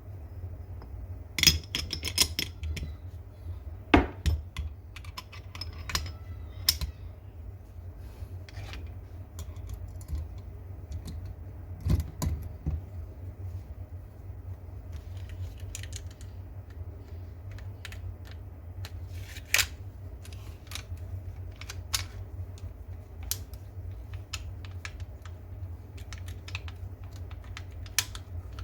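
Small metal pistol parts clicking and clinking as the gun is worked on and reassembled, with a few sharper knocks, over a steady low hum.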